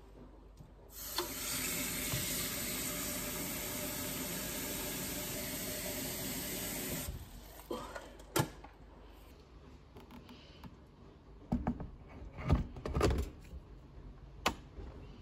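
Kitchen tap running water into a Smeg electric kettle for about six seconds, then shut off. Then a few clunks and knocks as the heavy kettle is handled and set down, and a sharp click near the end as its switch is pressed.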